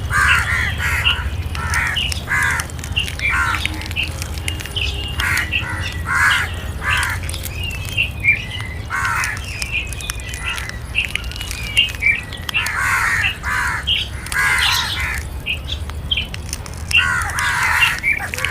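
Crows cawing again and again, harsh calls overlapping from more than one bird, with a few thinner chirps mixed in and a steady low rumble underneath.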